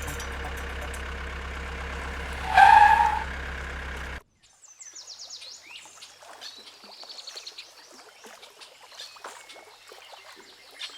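A steady low hum with one loud pitched call or hoot about two and a half seconds in. It cuts off abruptly after about four seconds, and small birds then chirp and twitter softly outdoors.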